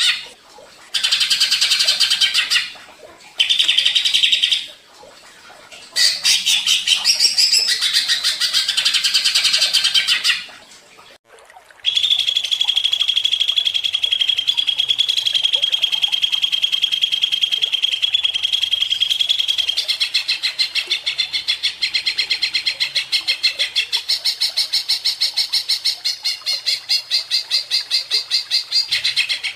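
Cucak ijo (greater green leafbird) singing loudly. The song comes in short bursts with brief pauses, then turns into an unbroken stretch, first a long held high note and then fast repeated notes.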